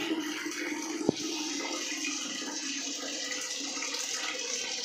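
Toilet cistern refilling through its ball-float inlet valve, a steady rush of water into the tank. A sharp click about a second in.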